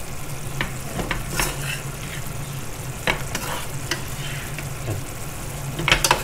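Spatula stirring and turning vegetables in a hot frying pan, with irregular scrapes and taps against the pan and a light sizzle, over a steady low hum.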